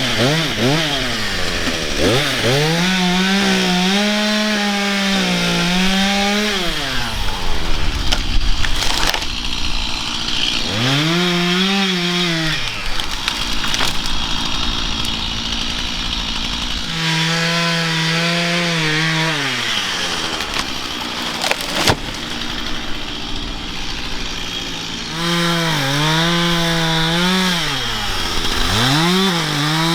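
A Stihl chainsaw revved to full throttle in four long bursts, its pitch wavering as if bogging in a cut, and dropping back toward idle between them.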